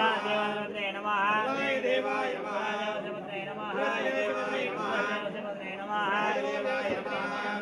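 Several male voices chanting Hindu mantras together, an unbroken chant over a steady low drone.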